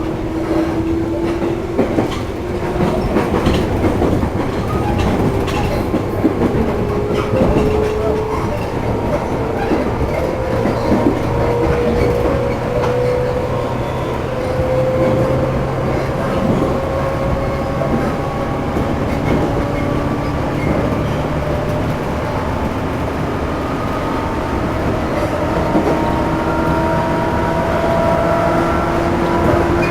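JR East 211 series electric train heard under its motor car MoHa 210-2020. The car has externally fan-cooled traction motors and is known for an unusual noise. Motor whine rises steadily in pitch as the train gathers speed, with a fresh lower tone joining and climbing about halfway through, over wheel rumble and clatter at rail joints.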